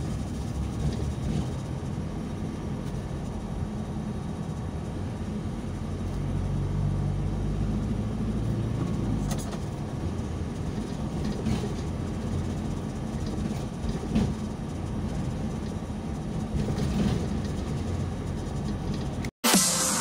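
Vehicle cabin noise while driving: a steady low engine and road rumble. It cuts off just before the end, where loud electronic outro music begins.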